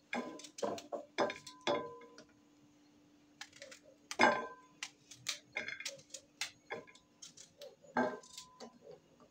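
Knife slicing small unripe green figs by hand: irregular sharp clicks and taps as the blade cuts through and the rounds drop onto a plate, with a louder tap about four seconds in and again near the end.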